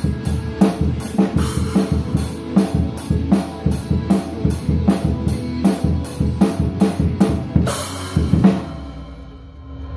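Acoustic drum kit played along with a recorded song, a steady beat of bass drum and snare hits, ending about eight seconds in on a cymbal crash. After it, the song's last chord rings on and fades.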